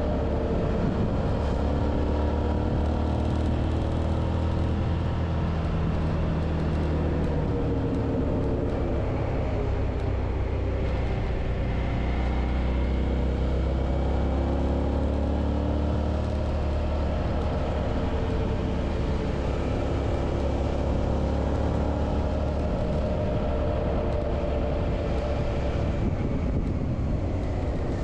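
Suzuki V-Strom 650's V-twin engine running under way on the road, its pitch rising and falling gently as the revs change.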